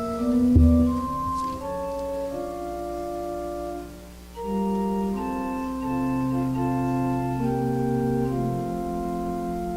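Organ playing slow, sustained chords, with a short break about four seconds in. A single low thump sounds about half a second in.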